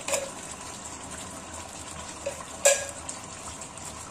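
Metal spoon clinking against metal: one sharp clink with a brief ring about two-thirds of the way in, and a smaller one at the start, as coconut milk is scraped from a can over a pot of fish. A low steady hiss lies underneath.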